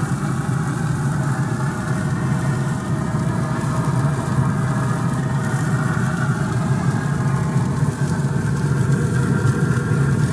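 Pit Boss pellet grill running on high with its sear zone open: a steady rush of fan and fire, with the bacon-wrapped ribeye sizzling on the grates over the flames.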